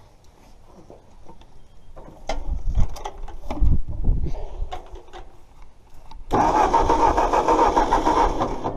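Ford 8N tractor's four-cylinder engine being cranked with uneven clunks, then catching about six seconds in and running loud and steady. This is its first start after sitting about a year, on a new 12-volt system with the distributor not cleaned.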